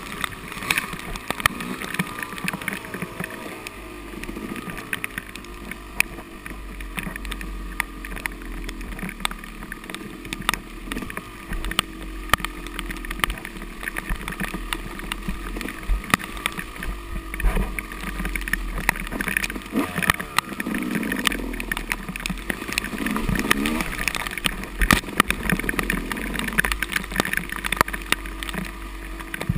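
Yamaha dirt bike engine revving up and down as it is ridden hard along a muddy trail, its pitch repeatedly rising and falling. Many sharp knocks and clatters come through from the bike over rough ground.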